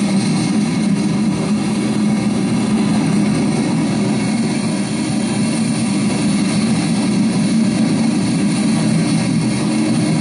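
Coal gondolas of a freight train rolling past, a steady rumble of steel wheels on rail.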